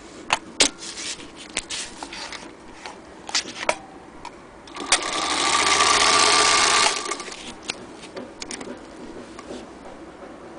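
Singer Featherweight 221 sewing machine stitching through fabric in one run of about two seconds, its electric motor swelling up to speed and stopping abruptly. Several sharp clicks and knocks come before it.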